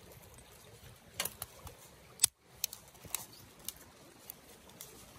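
Sharp, irregular clicks and snaps as a burning feather stick is set into a titanium Firebox stove: shavings crackling and wood tapping the stove's metal walls. The loudest snap comes a little over two seconds in.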